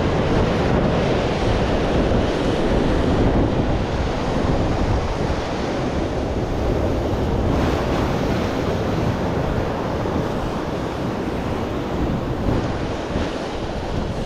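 Sea surf washing against the shore in a steady rush, with wind buffeting the microphone.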